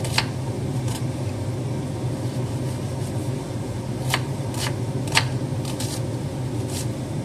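Kitchen knife dicing onion on a wooden cutting board: a handful of sharp, irregularly spaced knocks of the blade on the board, over a steady low hum.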